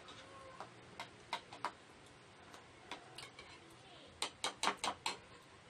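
Spoons clinking and scraping against ceramic bowls: a few scattered light clicks, then a quick run of clinks about four seconds in as a spoon scoops melted ice cream from a bowl.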